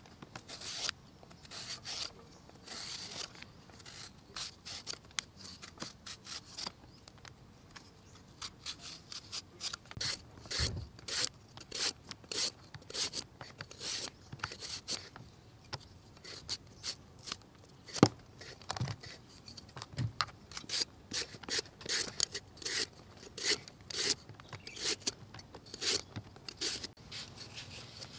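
Metal peeler shaving thin lengthwise slices off peeled green bananas: short, irregular scraping strokes, a few a second, with one sharper click about two-thirds of the way through.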